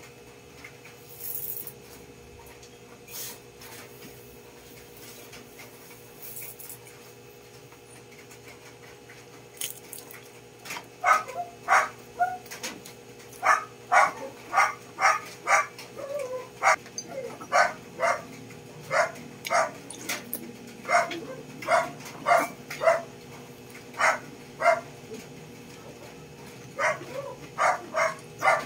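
A dog barking over and over, roughly two barks a second, starting about eleven seconds in.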